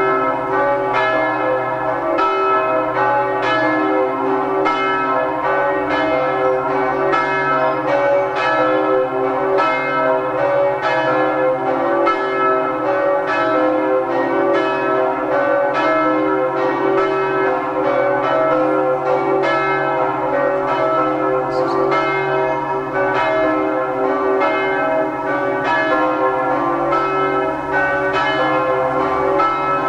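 Several church bells ringing together in a continuous peal, strokes coming a few times a second over their lingering tones.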